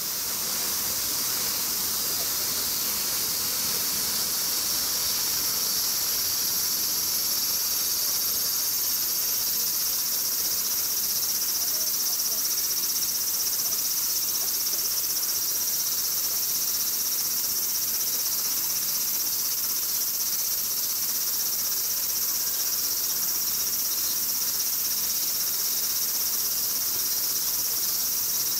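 A steady, high-pitched drone from a chorus of insects.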